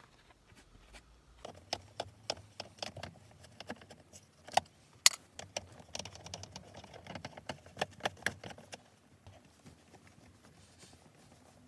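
Irregular light clicks and knocks of the removed console armrest pieces of a 2007 Acura MDX being handled and set down, a dozen or more small impacts that stop about nine seconds in.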